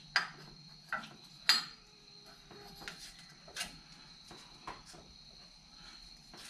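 A handful of light clicks and knocks as a strut's top mount is handled and turned on the strut shaft to line up alignment marks, the sharpest about a second and a half in, over a faint steady high whine.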